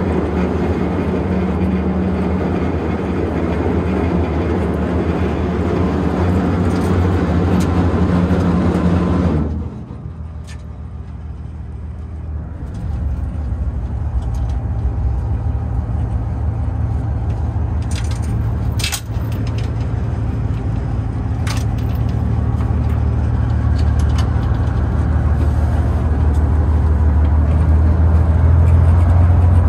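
Steady low drone of the Aurora 3 sightseeing boat's engines heard on board, with a rushing noise over it that cuts off suddenly about a third of the way in, leaving the low drone; a few light knocks later on.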